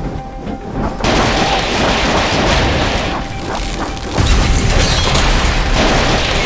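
AI-generated action-film explosion effects: a low rumble, then a loud crash about a second in and a heavy boom with deep rumble a little after four seconds in.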